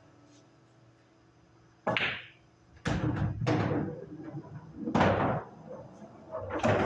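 Pool balls knocking on a bar pool table as shots are played: a sharp clack about two seconds in, a quick cluster of clacks about a second later, another strong one about five seconds in, and more near the end, each ringing briefly.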